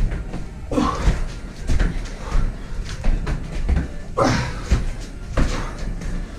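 Burpees on a rubber gym mat: dull thuds of hands and feet landing on the floor, with a few short, effortful voiced exhales falling in pitch.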